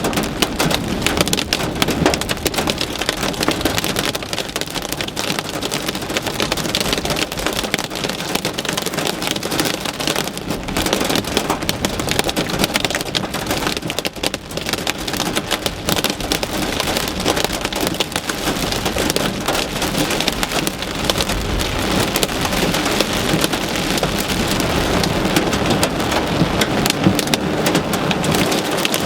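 Heavy monsoon rain drumming on a car's roof and windshield, heard from inside the car: a dense, steady patter full of sharp hits.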